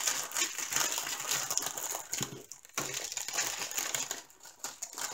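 Plastic bags crinkling and small packets of diamond-painting drills clicking and rattling as they are handled and packed away, in irregular crackly spurts with two short lulls, about two and four and a half seconds in.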